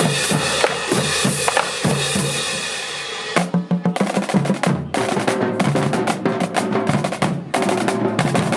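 High school marching band drumline playing a loud cadence on snare and bass drums. A dense, sustained wash fills the first three seconds, then the drums beat on in a steady pattern.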